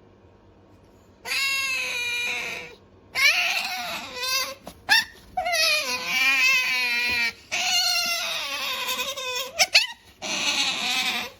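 Asian small-clawed otter making a run of about five long, high-pitched whining calls with short gaps between them, some wavering in pitch.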